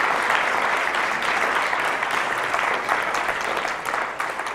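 Audience applauding at the end of a talk, a steady round of many hands clapping that thins out near the end.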